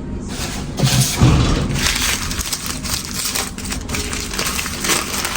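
Wrapping crinkling and rustling as lighters are handled and unpacked, with a couple of soft knocks about a second in.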